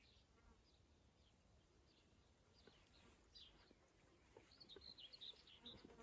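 Faint songbirds chirping: scattered short high notes, with a quick run of them about four and a half seconds in.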